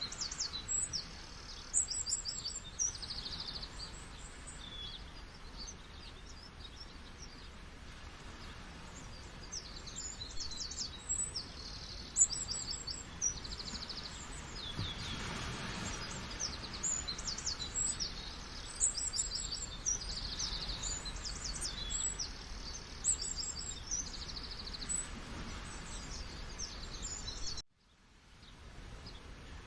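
Many small birds chirping and trilling in quick high notes over a steady hiss of running water. Near the end the sound cuts out abruptly and fades back in.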